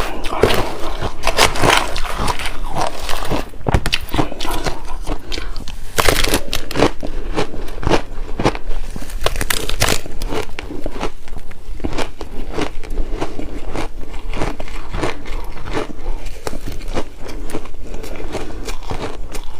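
Shaved ice being bitten and chewed close to the microphone: a dense, continuous run of crunches and crackles, with a few louder bites scattered through.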